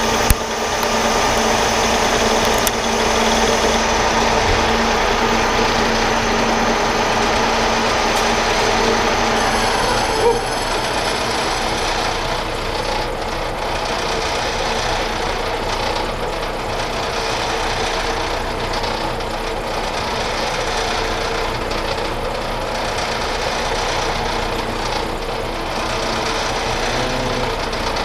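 Metal lathe running steadily, turning a steel part. A short knock about ten seconds in, after which the running note shifts slightly.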